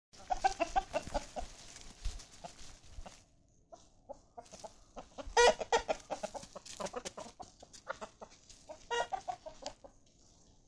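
Chickens clucking in short runs of quick notes: a run about half a second in, the loudest run around five and a half seconds, and another near nine seconds.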